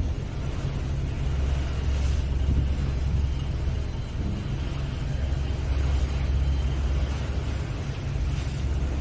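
Low, steady drone of a ro-ro ferry's engines heard on deck while the ship is under way, the rumble swelling and easing every couple of seconds.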